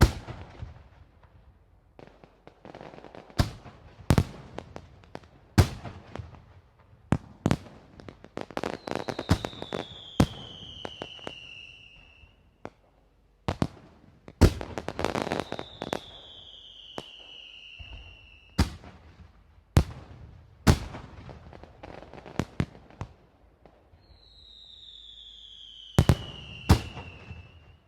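Fireworks sound effect: a string of sharp bangs with crackling between them, and three times a whistle that falls in pitch over a couple of seconds.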